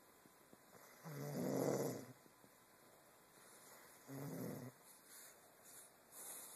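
Snoring: a long, loud snore of about a second, a shorter one about three seconds later, and a fainter one near the end.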